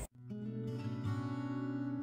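Background music: acoustic guitar playing soft, sustained notes, starting just after an abrupt cut.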